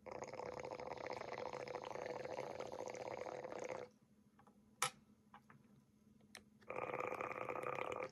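Water bubbling inside a silicone dab rig as someone inhales through it. The first pull lasts about four seconds, then comes a pause with one sharp click, and a second pull starts near the end.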